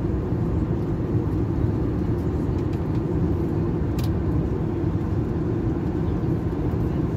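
Steady cabin noise of an Airbus A321 in cruise: the low, even rush of airflow and engines heard inside the cabin, with a single light click about four seconds in.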